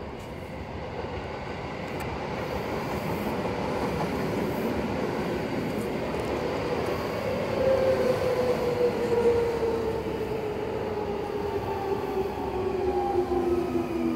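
Seibu Railway electric commuter train passing close by, its wheel and running noise building up as it nears. From about halfway through, a motor whine slides steadily down in pitch as the cars go by.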